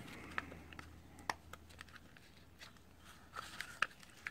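Light clicks and knocks of hard plastic as the cell holder of a Makita 18V lithium-ion battery pack is handled and pressed down into its case, with a soft scuffle about three and a half seconds in. A low steady hum runs underneath.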